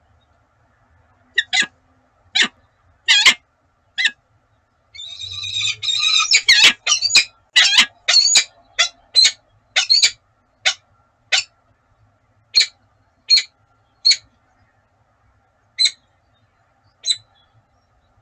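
Peregrine falcon calling loudly, close to the microphone: a few short, harsh calls, then a rapid run of calls about five seconds in, then single calls that come further and further apart toward the end.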